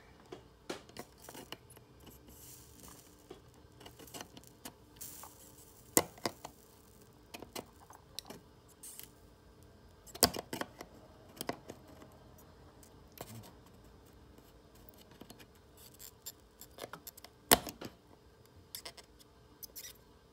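Small metal hand tools, pliers and tweezers, clicking and tapping against a slot car's steel-wire chassis on a jig plate: scattered light ticks with a few sharper clicks, the loudest late on.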